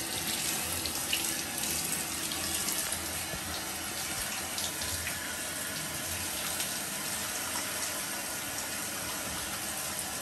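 Handheld shower head running steadily, its water spraying through a wet dog's coat and splashing into the bathtub.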